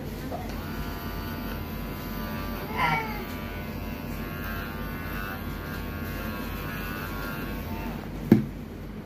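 Small cordless pet clipper running with a steady hum while trimming the fur on a cat's paw pads, stopping shortly before a single sharp knock near the end. A cat meows once, briefly, about three seconds in, its pitch falling.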